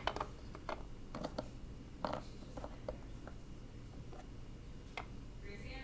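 Scattered light clicks and taps of small plastic toy figures being handled and set down, over a faint steady room hum.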